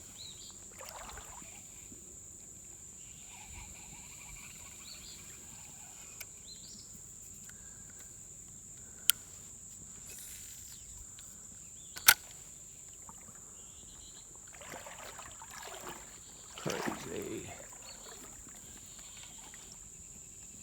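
Steady high-pitched drone of insects, with two sharp clicks about three seconds apart in the middle.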